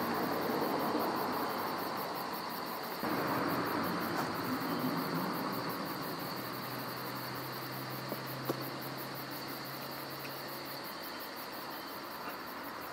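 Night-time ambience of crickets chirping steadily over a soft hiss, with a low steady hum in the second half.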